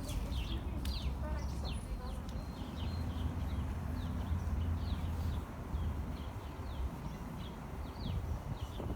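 Small birds chirping: many short, high chirps that slide downward, repeated irregularly throughout, over a steady low rumble.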